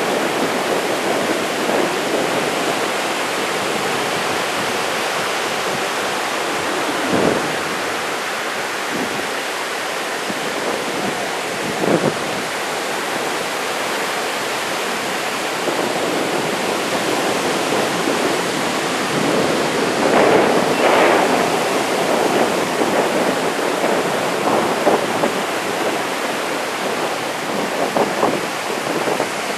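Heavy typhoon surf breaking and washing up the beach: a steady rush of noise, swelling louder a few times, about 7, 12 and 20 seconds in.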